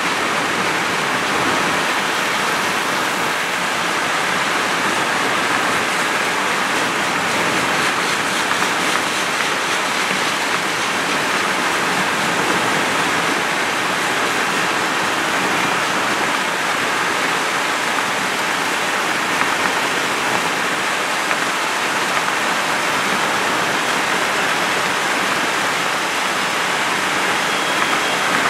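Steady rush of wind and tyre noise from a car driving at speed.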